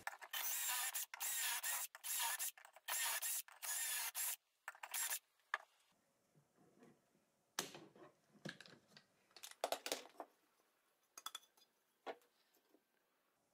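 Cordless drill boring 3/8-inch dowel holes through a dowelling jig's drill guides into the end grain of a 2x6 board: about six short bursts of drilling in the first four and a half seconds. Then scattered light clicks and knocks as the clamp and jig are handled and taken off.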